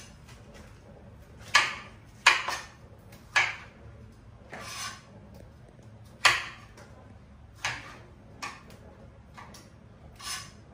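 Irregular knocks and clinks of kitchen utensils, bowls and a knife on a cutting board as vegetables are prepared, about nine separate strikes with short pauses between them.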